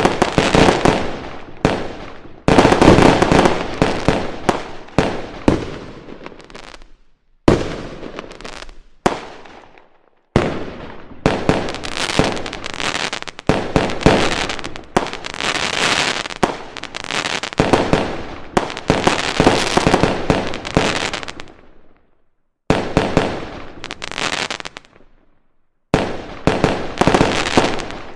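Fireworks going off in dense volleys of rapid crackling bangs. Each volley starts suddenly and fades away, with short silences between them: about seven seconds in, ten seconds in, and twice near the end.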